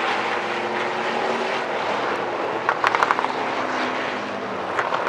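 Hobby stock race cars' engines running on a dirt oval, a steady engine drone heard from the stands, with a quick run of sharp cracks about three seconds in.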